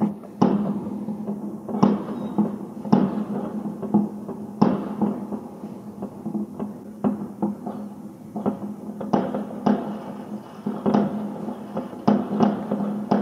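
Distant aerial fireworks exploding: about a dozen irregular bangs, each trailing a short echo, coming thicker in the last few seconds, over a steady low hum.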